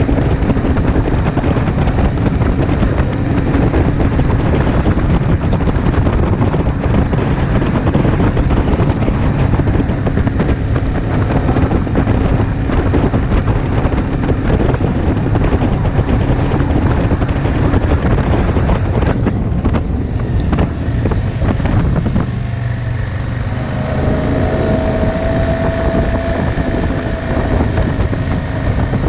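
ATV engine running steadily at cruising speed, with wind rushing over the microphone and the rumble of tyres on gravel. About 22 seconds in, the engine note drops as the rider eases off, and a thin higher tone comes in for a few seconds.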